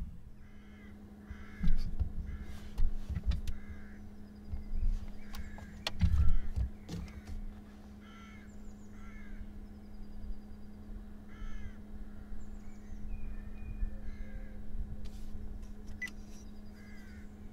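Crows cawing repeatedly, with a few knocks and thumps, the loudest about two and six seconds in, over a steady low hum.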